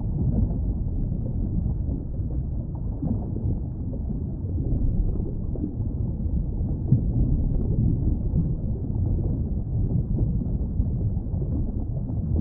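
Steady low underwater rumble and wash of water noise, with no distinct animal calls.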